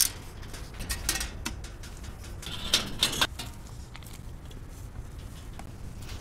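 Scattered light clicks and clinks from hands working at a steel shipping crate and a plastic-wrapped scooter, with two sharper clicks about three seconds in, over a steady low rumble.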